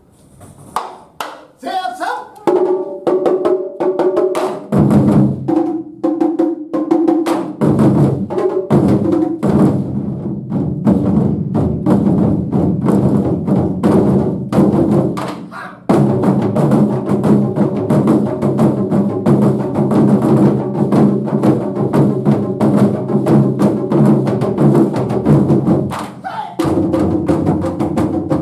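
Japanese taiko drum ensemble playing: a few scattered strikes at first, then a few seconds in a rapid, dense drumming pattern sets in, which grows louder about halfway through, with a brief lull near the end.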